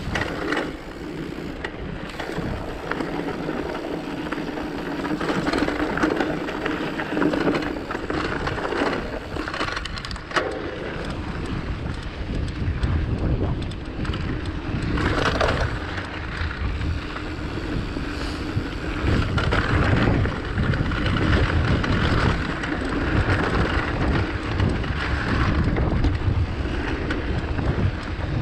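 Rockrider mountain bike riding a trail: tyres rolling and crunching over gravel and rock, with irregular clatter from the bike and wind rumbling on the microphone.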